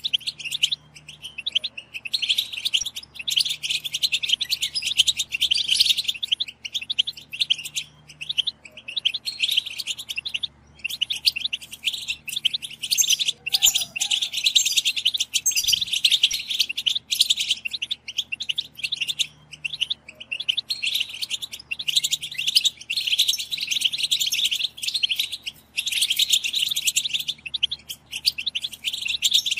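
Several European goldfinches, female calls, in fast, dense twittering chatter (the 'batbata'), overlapping in bursts with brief breaks. This is the chatter bird keepers play to spur male goldfinches into song.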